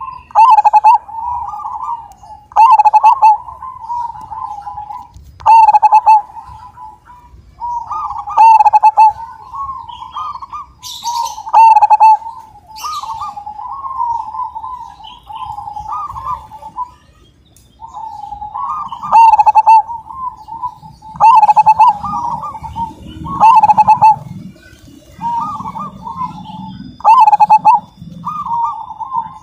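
Zebra dove (perkutut) singing its rolling coo song, phrase after phrase, each with one loud, ringing accent note, about every two to three seconds, with a brief pause midway.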